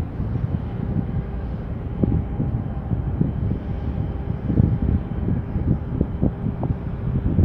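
Wind buffeting the microphone in uneven gusts, over a faint steady hum from the large container ship's engines and machinery as it sails past.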